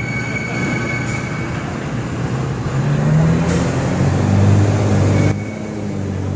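Ship's deck generator set running with a steady low drone. Its pitch rises slightly about three seconds in, and the noise drops a step just after five seconds.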